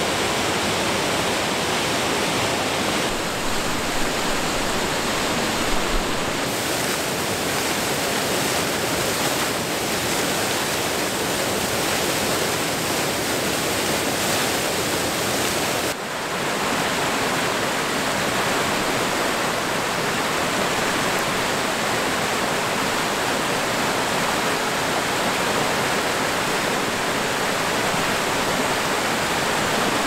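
Water of a small waterfall cascading over granite boulders, a steady rushing hiss. It dips briefly about halfway through, then carries on as before.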